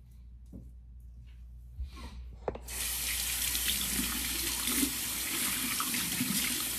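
Water starts running suddenly about two and a half seconds in and keeps flowing steadily from a tap, a loud even rush.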